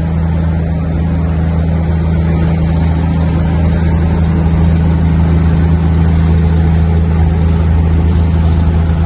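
Scania 124 truck's straight-six diesel engine running steadily while the truck drives along, heard from inside the cab as a loud, steady low drone with road and wind noise.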